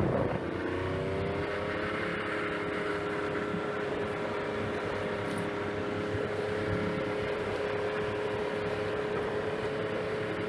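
Snowmobile engine running at a steady speed, its pitch easing down slightly in the first second and then holding level.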